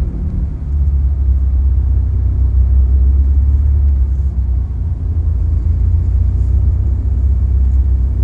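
Steady low engine and road rumble heard from inside a vehicle's cabin as it drives along a tarmac road.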